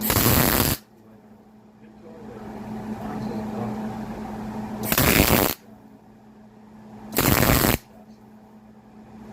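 Three short bursts of crackling from an arc welder laying tack welds on a steel part: one right at the start, one about five seconds in and one about seven seconds in, each well under a second long.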